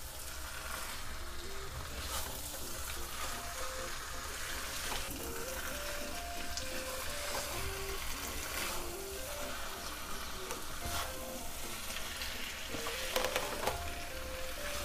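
Wooden spatula stirring and scraping chicken pieces through thick masala in a non-stick kadhai, with a steady sizzle of frying and a few louder scrapes near the end. A soft background melody plays underneath.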